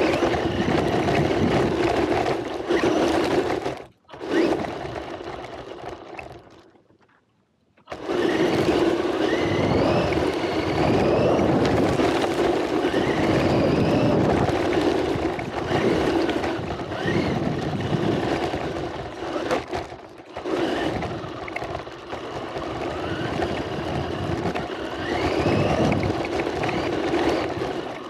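Radio-controlled car driving over dirt and gravel, heard from a camera mounted on the car: steady drivetrain and tyre noise with short rising whines as it speeds up. The sound drops almost to silence for about a second and a half around seven seconds in, and briefly near four and twenty seconds.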